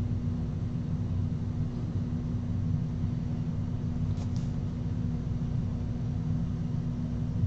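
Steady low hum and rumble of background room noise, with two faint ticks about four seconds in.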